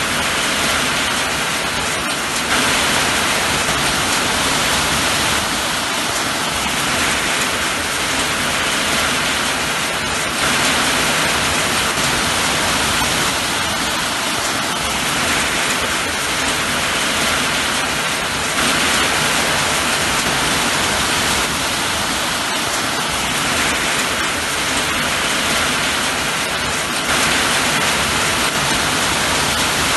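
Steady rain falling, an even hiss with no pauses, its loudness stepping up slightly about every eight seconds.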